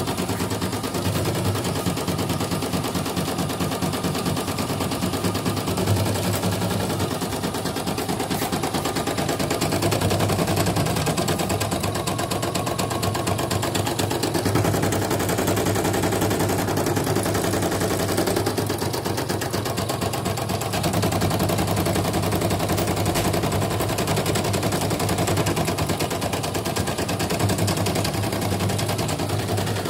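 CNY portable computerized embroidery machine stitching a design in its hoop: a rapid, steady needle clatter whose rhythm shifts every few seconds as the hoop is moved. This is its final test run after a repair for stiff turning and a dead machine.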